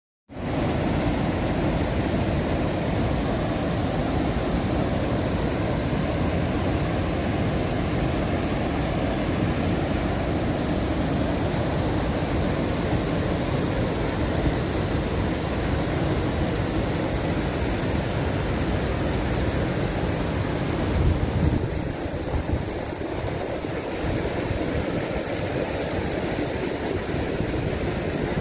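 Muddy floodwater spilling over a long low weir, a steady rush of falling water with an uneven low rumble underneath that eases somewhat about twenty seconds in.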